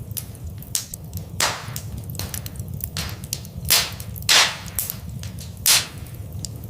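Wood fire in a fireplace crackling: irregular sharp pops and snaps, with a few louder cracks in the middle, over a steady low rumble.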